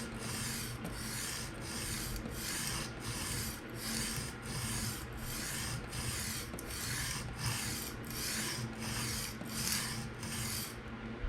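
PM60 steel knife edge being drawn in full-length passes across a 220-grit diamond sharpening stone: a dry, hissing rasp in quick, even strokes, about one and a half a second, stopping shortly before the end. These are the final passes that set the burr along the edge.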